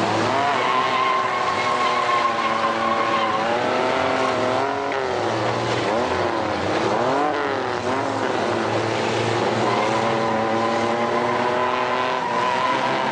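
Mini-truck engines revving hard, their pitch rising and falling again and again as the throttles are worked, with tyres spinning.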